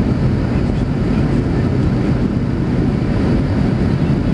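Steady engine and airflow noise of a jet airliner, heard from inside the passenger cabin on final approach just before touchdown.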